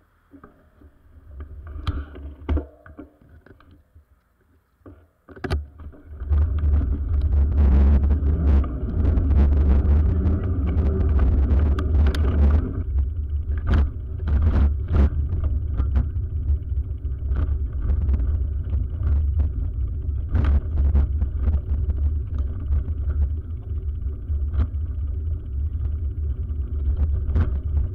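Low rumble and rattling from a bicycle-mounted camera rolling over a brick-paved road, with many small knocks from the bumps. It starts about six seconds in, after a few separate knocks while the bike is still.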